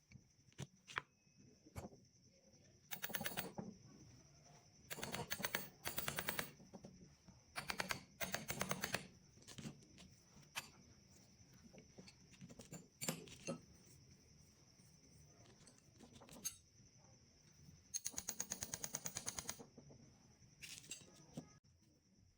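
Hand-tool work in a small workshop: bursts of rapid, even clicking, each lasting about a second, broken by single sharp knocks, over a faint steady high whine.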